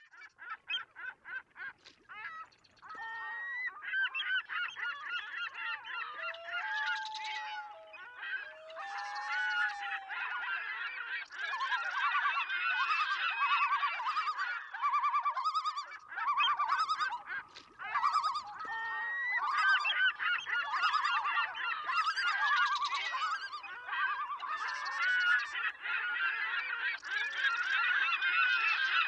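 A flock of birds calling over one another in rapid, overlapping honking calls, with a few longer drawn-out notes about six to ten seconds in.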